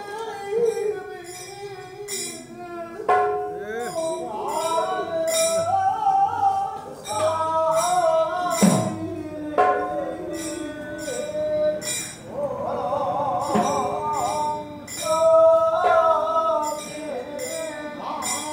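Manipuri Nat Sankirtan: voices sing a wavering devotional chant over regular clashes of small metal hand cymbals, about two a second, with pung barrel drums.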